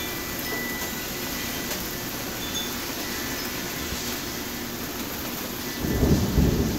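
Steady hiss of rain and wind. About six seconds in, a low rumble of thunder starts and grows louder.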